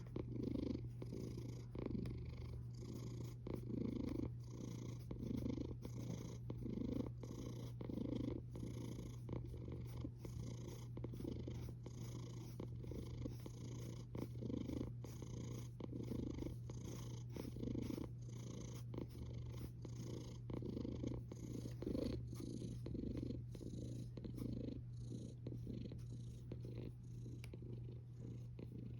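Domestic cat snoring in its sleep: a soft rhythmic rasp that swells with each breath, about once a second.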